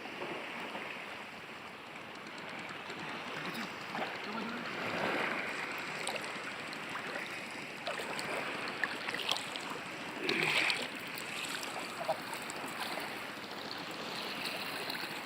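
Steady rush of water at the shoreline, a current or small waves running along the bank, with a few faint distant voices.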